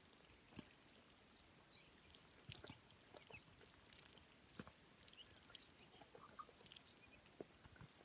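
Faint sounds of a flock of ducks and ducklings feeding from a pan: scattered short pecking clicks and a few soft peeps.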